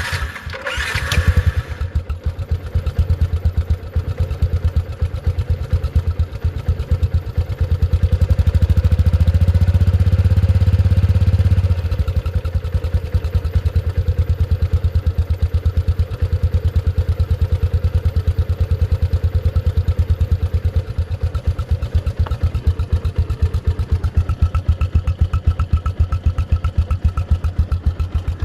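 Yamaha Exciter 135 motorcycle's single-cylinder four-stroke engine running just after starting, idling with a steady even pulse. Its revs are held a little higher for a few seconds about a third of the way in, then drop back to a steady idle.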